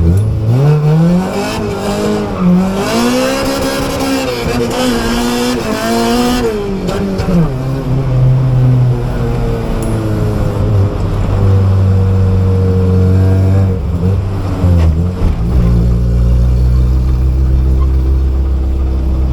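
Honda H22 four-cylinder engine in a Civic revved hard: its pitch climbs steeply, wavers high for several seconds with a rushing noise over it, then drops about seven seconds in and settles into a steady lower drone, dropping lower again near the end.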